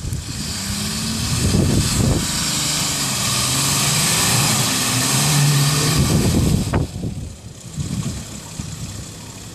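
Nissan Patrol Y60's 4.2-litre TD42 straight-six diesel working under load up a muddy slope, its note dropping in pitch, with a loud rushing hiss over it. About seven seconds in, both ease off sharply and the engine settles to a quieter, lower running sound.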